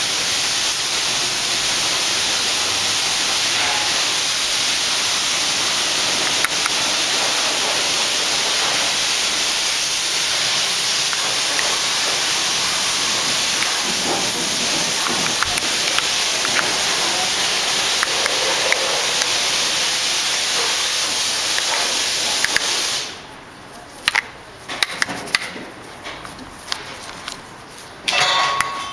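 Steady hiss like spraying water, which cuts off suddenly about 23 seconds in; after it, a few light clicks and taps.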